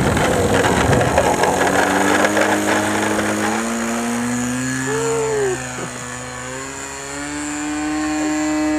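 Engine of a radio-controlled model airplane running at full throttle through the takeoff roll and climb-out. Its pitch climbs gradually, swoops briefly about five seconds in, and begins to drop right at the end.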